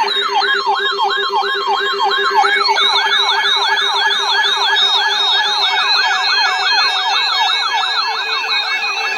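Electronic siren-style alert tone: a wailing pitch that sweeps up and down about three times a second, speeding up a little over two seconds in, over a steady low tone.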